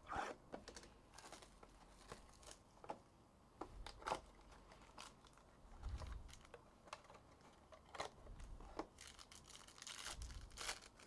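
Faint tearing and crinkling of Contenders Optic trading-card pack wrappers being ripped open, with scattered small clicks and rustles as the cards are handled.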